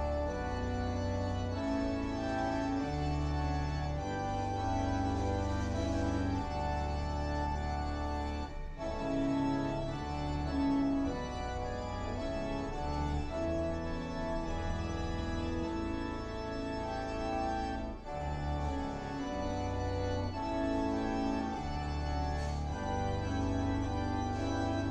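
Electronic console organ played with full-organ (tutti) registration: sustained chords rich in overtones over a deep pedal bass, changing every second or so. The sound breaks off briefly twice, about a third and about three quarters of the way through.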